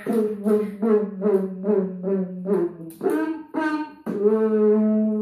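Beatboxing into a hand-cupped microphone: a hummed bass tone broken into a steady run of rhythmic pulses, about two to three a second, ending on one long held note about a second before the end.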